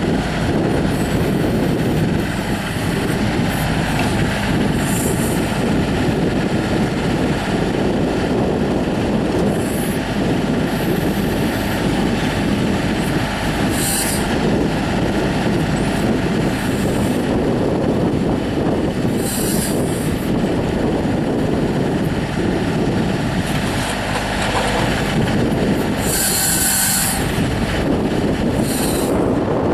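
Kubota L35 tractor loader backhoe's diesel engine running steadily while the machine is operated. Short high-pitched bursts come every few seconds, the strongest near the end.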